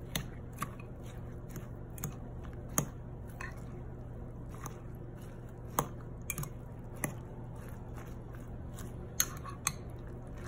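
Metal spoon stirring a wet egg-and-vegetable stuffing in a glass bowl: soft squelching with irregular sharp clicks of the spoon against the glass.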